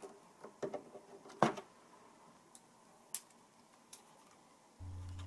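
A few soft plastic clicks and knocks from hands handling a plastic battery box and the caps on its 12 V socket panel, the loudest about a second and a half in, then a few faint ticks; a steady low hum starts near the end.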